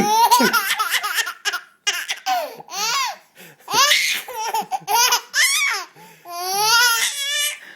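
A six-month-old baby laughing hard in repeated high-pitched bursts, with short breaks between them.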